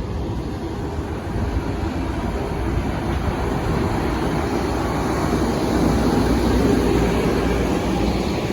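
Amtrak P42DC diesel locomotives and train running: a steady, heavy rumble that slowly grows louder.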